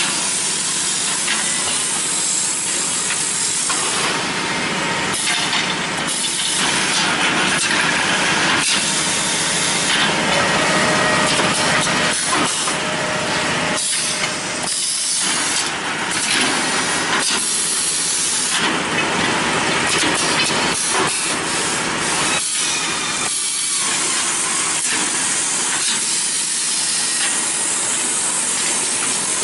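Automatic parallel paper tube making machine running: a steady mechanical noise with a hissing sound over it that cuts in and out every second or two.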